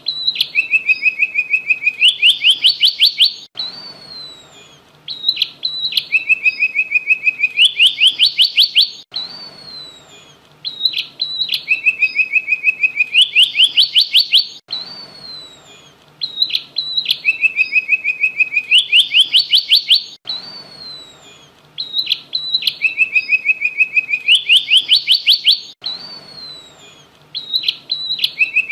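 Emprit (munia) songbird singing prenjak (prinia)-style phrases, loud and without pause. Each phrase is an even, rapid trill followed by a run of notes rising in pitch, ending with sharp high ticks and a falling slur, and the phrase comes back about every five and a half seconds. A faint steady low hum lies underneath.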